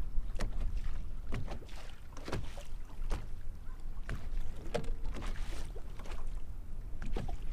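Small waves slapping and splashing irregularly against the hull of a bass boat, over a low wind rumble on the microphone.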